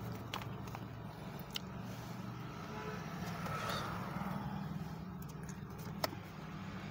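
Faint steady low hum of a vehicle, with a few small clicks and rustles as a paper card and a small cardboard box are handled.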